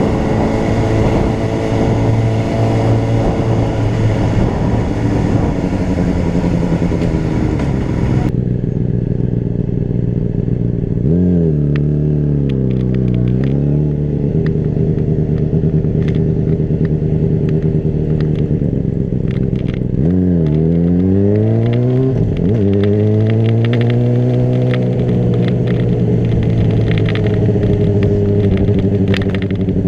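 Honda CBR600RR's inline-four engine running under way, its revs dipping and rising through gear changes. It makes a quick climb in revs about two-thirds through, followed by a sharp drop, then settles into a steady pull. A hiss over the engine stops abruptly about eight seconds in.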